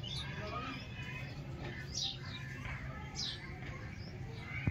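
Birds chirping: a few short, sharply falling high calls spaced more than a second apart, over a low steady rumble.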